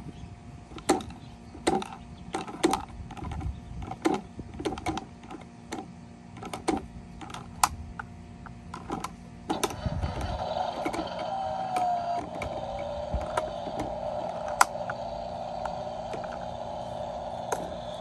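Plastic toy garbage truck and trash bin being worked by hand: a run of irregular clicks and knocks. About halfway a steady mechanical whir starts and runs until near the end.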